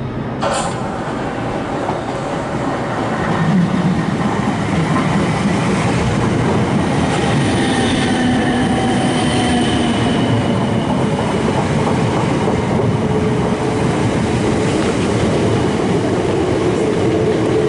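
South Western Railway Class 455 electric multiple unit running into the platform and slowing, its wheels running on the rails under a slowly falling whine from its traction equipment. A sharp click sounds about half a second in.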